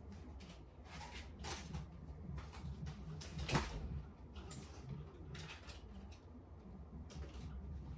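Clothes hangers clicking and scraping on a closet rod as baby clothes are hung, with cloth rustling; a sharp click about three and a half seconds in is the loudest. A steady low hum runs underneath.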